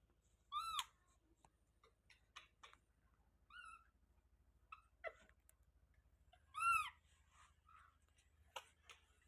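Baby monkey giving short, high, squeaky calls that rise and then fall in pitch: two loud ones, about a second in and again near seven seconds, with a softer one in between. A few faint clicks are also heard.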